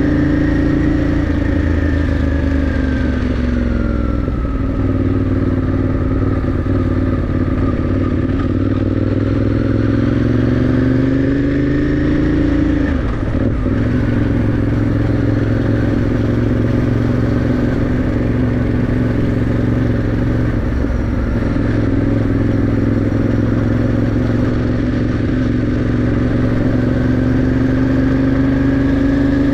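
Motorcycle engine heard from the saddle while riding. Its pitch falls as the bike slows a few seconds in, then climbs as it accelerates, breaks briefly at a gear change about halfway, holds steady, and rises again near the end.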